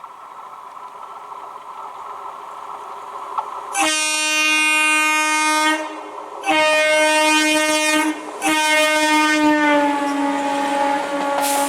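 Electric multiple unit (EMU) local train approaching with a rising rumble, then sounding its horn in three long blasts, the last one longest and dropping a little in pitch as the train comes by.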